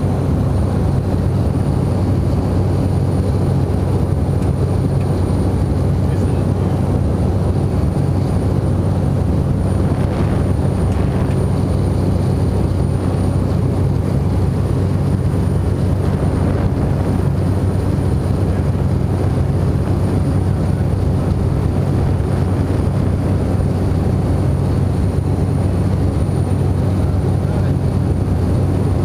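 Cessna Caravan amphibian's single PT6A turboprop engine and propeller droning steadily in flight, heard from inside the cockpit as an even, low hum.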